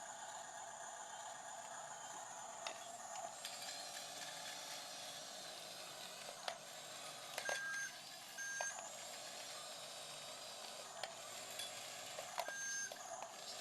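Three short electronic beeps, two about a second apart and a third some four seconds later, with scattered clicks, over a steady background hiss.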